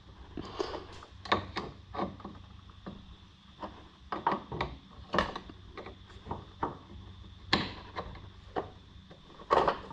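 Irregular clicks, taps and knocks of hand tools and metal parts being handled, with two louder knocks near the end.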